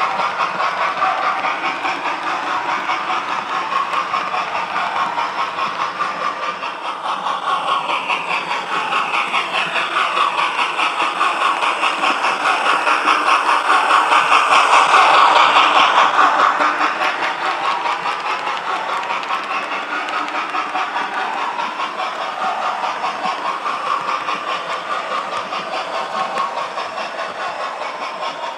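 Hornby class 08 diesel shunter's engine sound played by a TTS sound decoder, chugging with a steady fast beat. The revs climb from about a quarter of the way in to a peak around halfway, then die back down.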